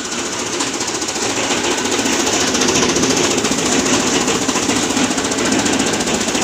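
Gear-driven chaff cutter running, a steady rapid mechanical clatter as its blades chop green fodder stalks, growing a little louder about a second and a half in.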